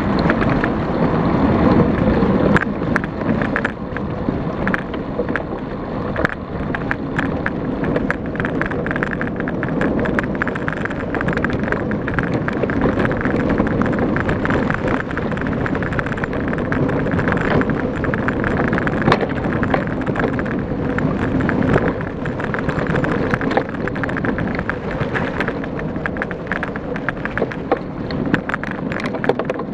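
Mountain bike ridden fast over a leaf-covered dirt trail: wind rushing over the action camera's microphone, tyres rolling over leaves and dirt, and the bike rattling with many sharp clicks over bumps.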